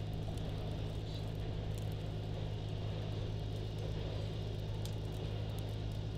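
Steady low drone of an engine running at idle.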